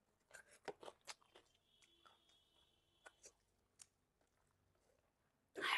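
Eating sounds close to the microphone: a quick run of short crunches and chewing clicks in the first second and a half, a few scattered smaller ones after, then one louder, longer crunch near the end.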